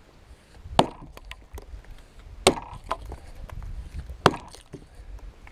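Hand-forged single-bit axe on a new hickory handle chopping a notch into a felled log: three sharp blows about a second and three-quarters apart, each followed by a few lighter ticks.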